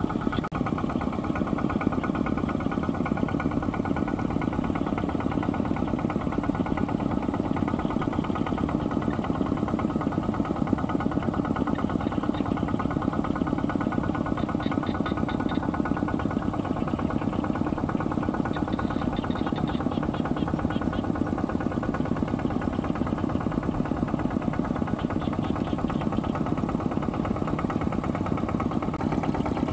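Two-wheel walking tractor's single-cylinder diesel engine running steadily with a rapid, even knock while it tows a load.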